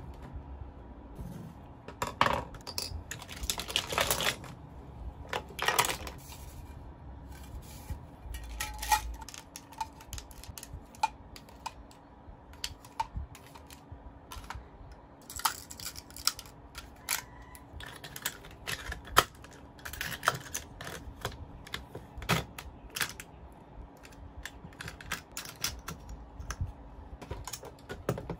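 Pens, highlighters and markers clicking and clattering against each other, a metal mesh pen holder and the desk top as they are handled and sorted: irregular taps with a few short rattling stretches.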